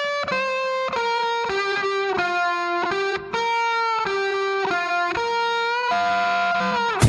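Music: a lone melodic line of held, sustained notes, one at a time, with a short break about three seconds in. The full band comes back in right at the end.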